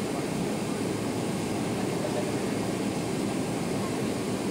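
Steady cabin noise of a Boeing 767-300ER in flight, heard from a window seat beside the wing-mounted engine: an even, low rumble of engine and rushing air.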